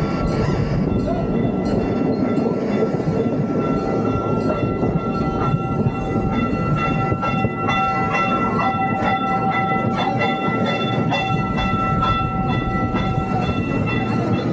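Boardwalk sightseeing train rolling along with a steady running rumble. A high, squealing tone is held through most of it, and light clicks of the wheels sound in the middle and later part.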